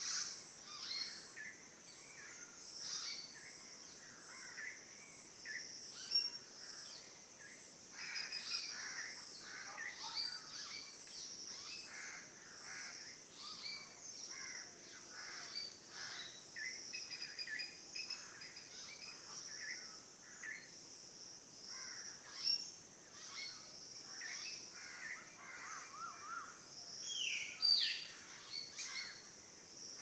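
Several songbirds chirping and calling over one another in a continuous chorus of short calls, with a louder rapid call near the end.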